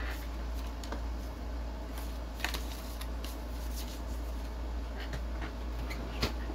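Light handling sounds: scattered small clicks and rustles as a white packaging box is moved and set down on a desk, the sharpest tap near the end. A steady low hum runs underneath.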